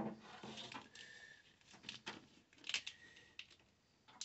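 Faint clicks and rustling of a wire and its plastic loom being handled and worked by hand.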